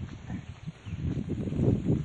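Wind buffeting the microphone: an uneven low rumble in gusts that grows much stronger about a second in.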